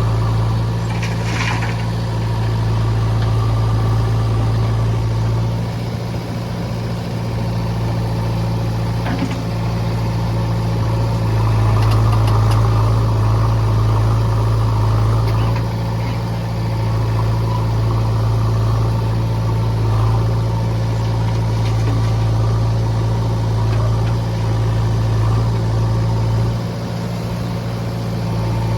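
Heavy diesel engine running steadily with a low, even hum, and a few faint knocks.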